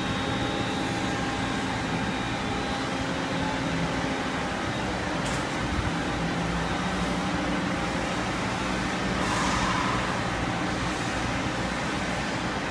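Steady mechanical hum and hiss from a powered-up CNC lathe and shop machinery, with a few faint steady tones and a slight swell about nine seconds in.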